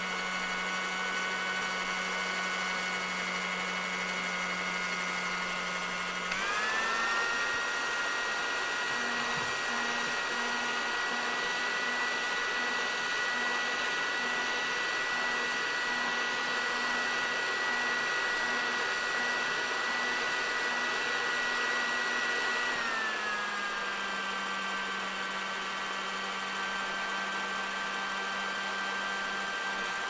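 Handheld hair dryer running steadily, its motor whining over the rush of air. About 6 s in it is switched to a higher speed: the whine rises and it gets a little louder. About 23 s in it drops back to a lower speed.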